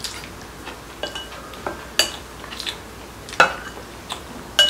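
Eating utensils clinking against ceramic bowls and a pot: a scattered series of sharp taps, some with a brief ringing tone, the loudest about three and a half seconds in.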